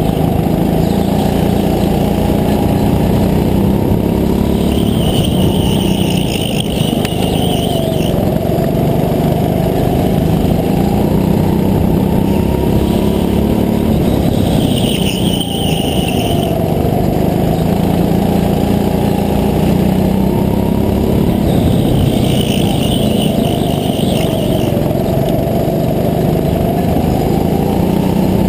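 Rental go-kart at racing speed, heard from the driver's seat, its motor note rising and falling as it slows for and powers out of the corners. A high squeal comes and goes about every eight seconds.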